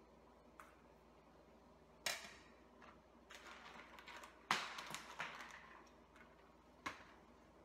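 A few sharp clicks and clatters of small hard objects being handled, with rustling between them. The loudest come about two seconds in and about four and a half seconds in, and a last sharp click comes near the end.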